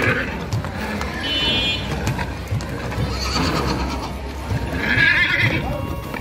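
A horse whinnying, with scattered thuds of hooves.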